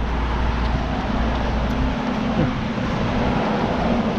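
Road traffic: vehicles running along a road, a steady hiss of tyres and engines, with a deep rumble that fades about halfway through and a steady low hum that comes in about then.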